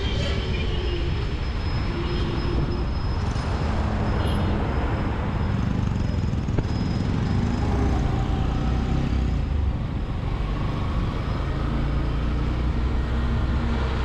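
Motorcycle engine running at low speed under the rider, with wind on the microphone and surrounding road traffic.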